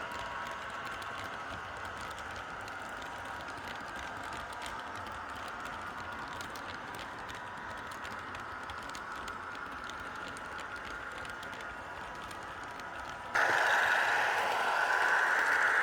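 Model railway train rolling along its track: a steady whir with rapid fine clicking of the wheels on the rails, turning suddenly much louder and brighter about thirteen seconds in.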